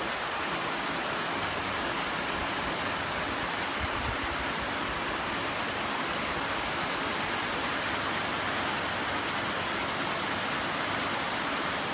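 Rows of paddlewheel aerators churning a shrimp pond, a steady rushing splash of water thrown up by the spinning paddles.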